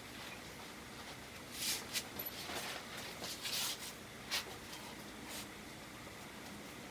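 Light metal scrapes and knocks of a motorcycle engine being worked into its frame, in a few short clusters about two seconds in and again between about three and four and a half seconds.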